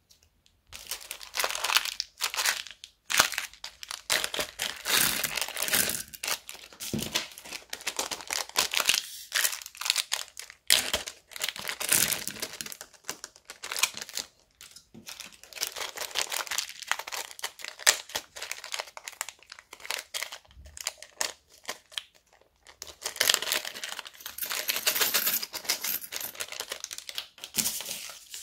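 Small plastic bags crinkling in repeated bursts as they are squeezed and emptied of beads and sequins into a glass bowl, with a few sharp clicks in between.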